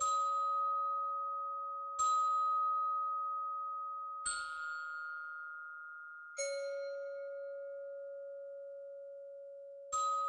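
Bell-like sonification notes, five struck one after another a few seconds apart, each ringing on long after its strike. Each note is a bright star appearing in the night sky: higher notes stand for bluer, hotter stars and lower notes for cooler, red ones.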